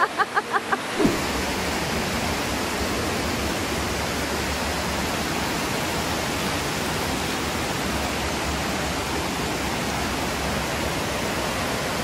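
Waterfall: a steady rush of falling water over rocks, with a low rumble underneath. It starts about a second in, right after a short burst of voice.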